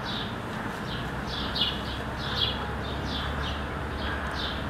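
Small birds chirping over and over, about three short falling chirps a second, over a steady low hum.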